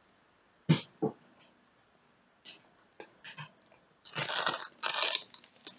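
Crunching and chewing of sugar-coated Polish gingerbread: two sharp crunches around the first second, scattered faint clicks, then a louder, noisier stretch about four to five seconds in.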